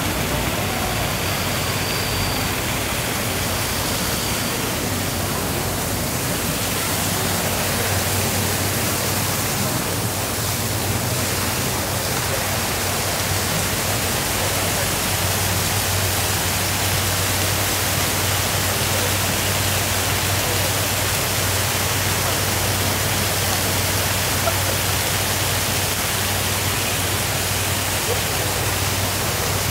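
Steady rush of running water along a small urban stream, with a low steady hum underneath.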